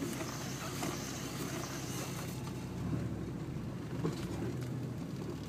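Nissan Patrol GQ's turbocharged RD28 six-cylinder diesel, running through a three-inch exhaust with no mufflers, heard from inside the cab at low revs while the truck rolls slowly. Its note drops lower about three seconds in.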